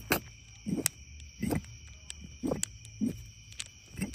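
Rebuilt VW TDI ALH brake vacuum pump turned slowly by hand at its drive coupling, giving a short rush of air with each stroke, several in a row. The pump is pulling strong vacuum and is hard to spin.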